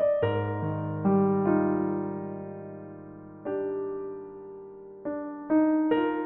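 Background music: slow, gentle electric piano chords, struck and left to fade before the next chord.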